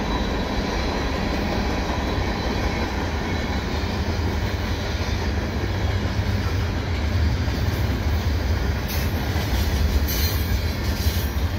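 A CN mixed freight train's cars rolling past fast on steel wheels: a steady, heavy rumble of wheels on rail.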